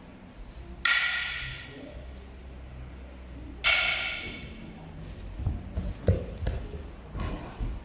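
A struck percussion signal rings out sharply twice, about a second in and again near the middle, each stroke dying away over about a second. Later come several soft thuds of children falling and rolling on the tatami mats.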